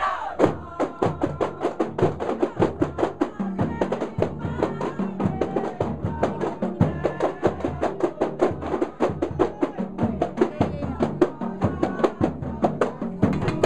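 Percussion music: a fast, steady rhythm of drum strokes, several a second.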